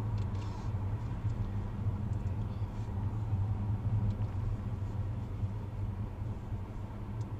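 Car engine and tyre noise heard from inside the cabin while driving slowly: a steady low drone.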